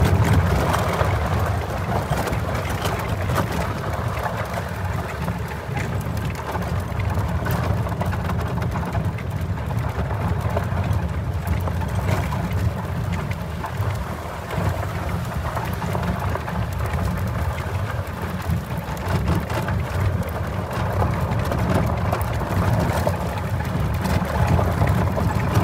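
Golf cart driving steadily along a dirt and gravel road: a continuous low rumble of the moving cart and its tyres rolling over the gravel, with wind buffeting the microphone.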